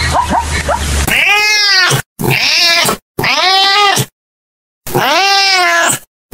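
A dog yipping rapidly, about four yips a second, stops about a second in. Then a domestic cat meows loudly over and over: four long meows, each rising and then falling in pitch, with short silent breaks between them.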